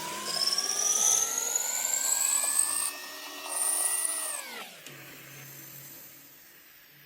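CNC lathe running: a whine that rises steadily in pitch for about four seconds, with a higher hiss above it, then drops away quickly as the machine slows. A low hum is left near the end.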